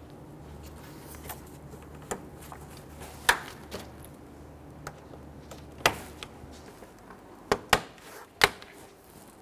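Plastic push-in retaining buttons snapping into the holes of a plastic radiator cover: about half a dozen sharp clicks spaced irregularly, three of them close together near the end. A faint low hum runs underneath and stops a little past halfway.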